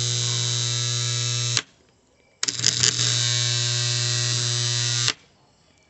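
Electrical contactor with its coil energized, buzzing loudly with a strong mains hum. It drops out about a second and a half in, then pulls in again with a brief rattle and buzzes until about five seconds in. The chattering is the sign of a coil fed 110 V instead of the 220 V it needs, which the owner finds leaves too little current to pull the armature in firmly.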